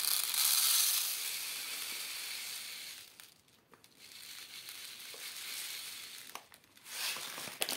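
Millet seed pouring from a packet into a plastic tray on a kitchen scale, a steady hissing rattle of small grains, stopping briefly about three seconds in and again just past six seconds before a last short pour.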